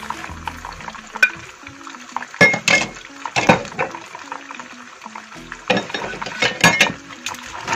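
Sharp clinks and knocks against a pan as seafood and pasta are handled in it, loudest about two and a half to three and a half seconds in and again near seven seconds, over background music with a slow stepping bass line.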